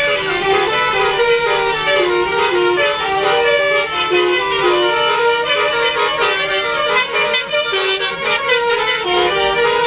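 Telolet basuri musical vehicle horn playing a quick melody of stepped, held notes without a break.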